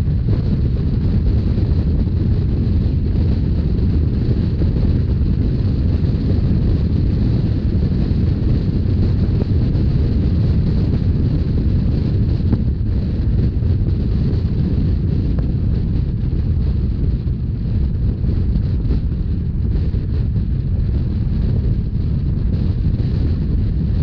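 Steady rumble of a moving narrow-gauge Rhaetian Railway train, with wind blowing on the microphone.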